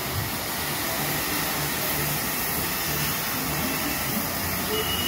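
Compressed-air spray gun hissing steadily as it sprays polish onto wooden furniture.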